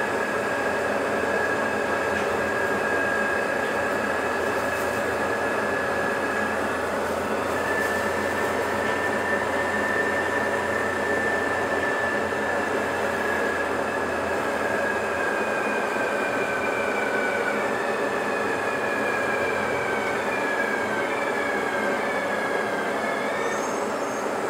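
Interior running noise of a New Taipei Circular Line metro train, heard from inside the car, with a steady high electric motor whine. Over the last several seconds the whine falls in pitch in small steps as the train slows.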